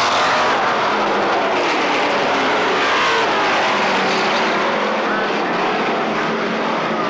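Several stock car engines running hard in a race, their pitches overlapping and sweeping up and down as the cars pass and go through the turns.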